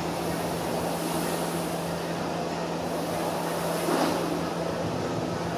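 Air-resistance rowing machine's flywheel fan whooshing steadily, swelling with each pull stroke about every two seconds, over a constant low hum.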